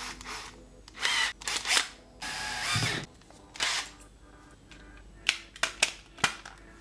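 Bosch Professional cordless drill run in two short bursts about a second apart while a drill bit is tightened into its keyless chuck, followed by a few sharp clicks near the end.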